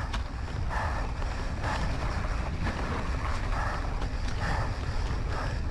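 A rider's heavy breathing, a hard breath about once a second, over a steady rumble of wind buffeting the microphone while riding fast downhill.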